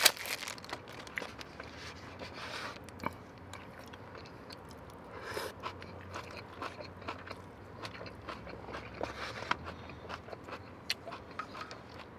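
A person biting and chewing fried chicken tenders close to the microphone: soft crunches and scattered short mouth clicks, with a few louder bites.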